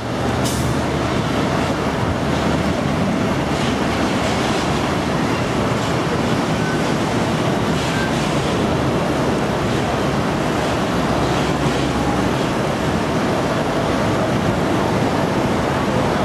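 Steady, loud roar of jet and machinery noise on an airport apron, with no distinct events.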